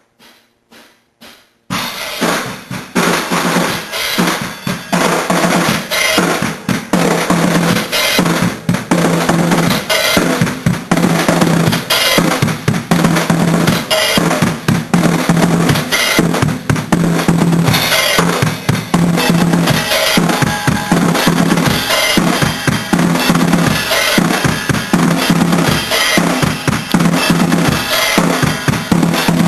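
Acoustic drum kit played hard in a full, continuous beat with kick drum and snare, starting about two seconds in after a few quiet taps.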